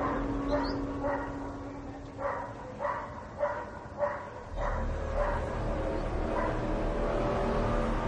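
An animal barking: about ten short barks, roughly one every half second, over a low steady hum.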